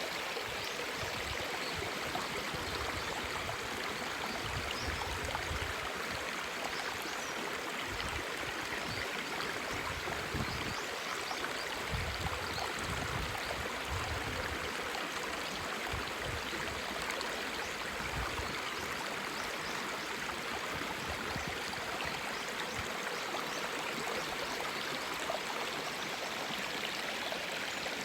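A clear river flowing, a steady babble of running water.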